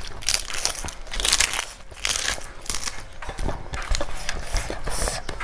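Close-miked crunching and crackling of food being eaten and worked by hand, in quick irregular crackles.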